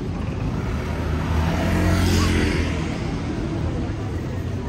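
A motor vehicle passing close by on the street: its engine and tyres swell to their loudest about two seconds in, then fade, over a steady hum of traffic.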